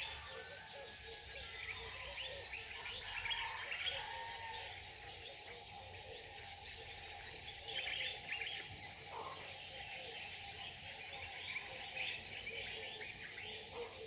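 Wild birds chirping and calling in many short notes over a steady high hiss of insects.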